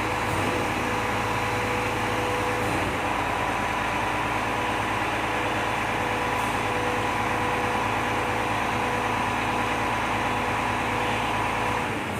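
Volvo FM 370 prime mover's diesel engine running steadily, a constant hum with two clear steady tones.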